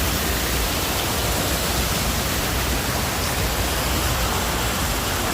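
Steady loud rushing noise with a low rumble, unbroken throughout.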